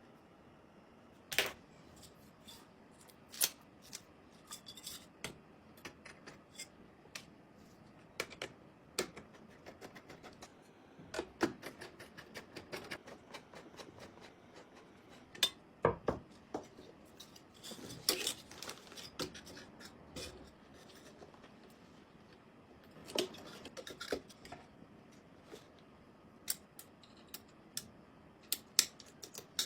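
Hands handling computer hardware and parts: irregular sharp clicks, taps and short scrapes, some in quick clusters, with the loudest knocks about a third and near the end.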